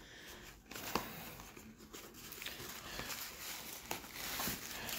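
Faint rustling and scraping of a small cardboard box as its flaps and insert are pried open by hand, with a few light clicks.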